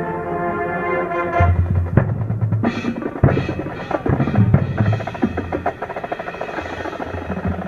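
Marching band playing: a held chord from the band rings for the first second and a half, then gives way to a drum-heavy passage of sharp strikes, rolls and low drum hits.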